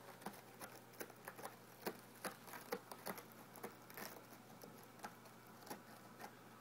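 A cat raking her claws down a scratching post: a run of quick, irregular scratching strokes that stops shortly before the end.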